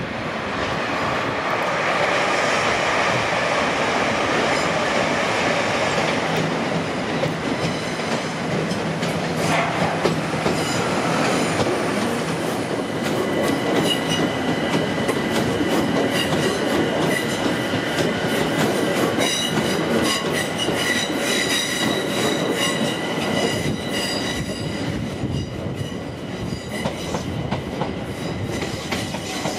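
Electric trains rolling past over jointed track, wheels clicking. From about halfway through, a London Overground Class 378 electric multiple unit's wheels squeal with steady high tones as it takes a tight curve.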